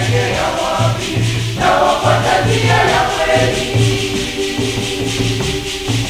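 Church choir singing a Swahili hymn in parts over a regular bass beat and a shaker. The singing thins out after about four seconds, leaving the beat and accompaniment.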